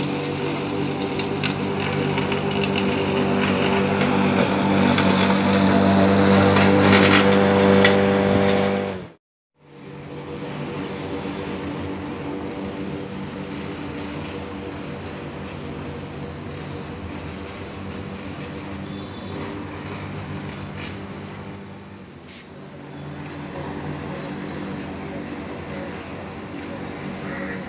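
Max Green corded electric lawn mower running steadily as it is pushed over the grass, getting louder over the first several seconds. After a brief dropout about nine seconds in, the same steady hum goes on fainter and more distant.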